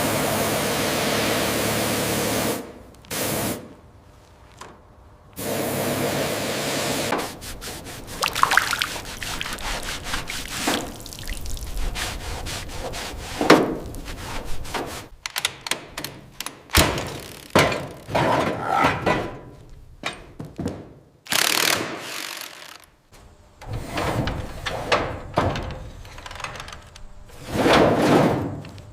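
A steady hiss for a couple of seconds, then a second hiss, then a long run of irregular knocks, clatter and short rushing noises.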